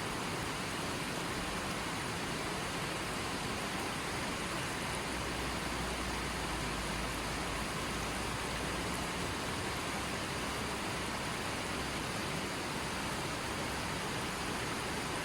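A small stream running over rocks: a steady rush of flowing water with no breaks.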